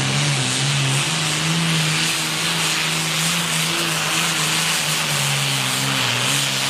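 Diesel pulling tractor running hard under full load as it drags a weight-transfer sled, its engine note holding high and steady with black smoke pouring from the stack. The pitch sags briefly near the start and again near the end as the engine is dragged down, then recovers.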